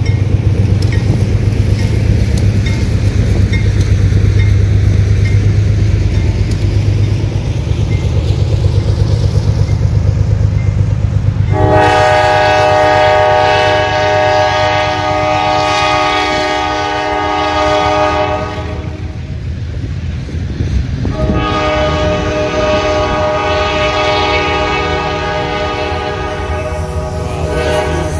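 Diesel freight train passing close by, its locomotive engine and rolling cars giving a heavy low rumble, while the locomotive sounds its air horn in two long blasts, the first about twelve seconds in and the second about twenty-one seconds in.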